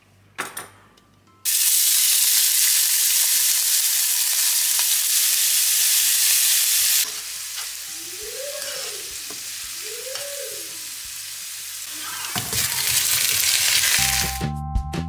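Potatoes frying in a pan, a loud sizzle that starts abruptly and drops to a quieter sizzle about halfway through. Background music comes in near the end.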